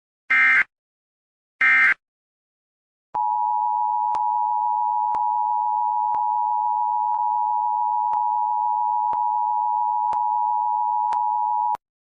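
Two short electronic beeps, then a steady electronic tone like a telephone dial tone, held for about eight and a half seconds with a faint click about once a second. The tone cuts off suddenly.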